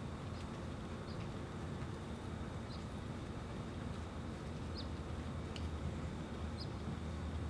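Open-air ambience: a steady low rumble with a handful of short, high chirps from small birds, spaced a second or so apart.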